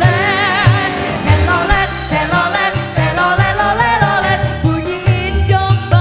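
Live dangdut band music: a woman singing into a microphone with a wide vibrato, over a steady kick-drum beat, cymbals and keyboard.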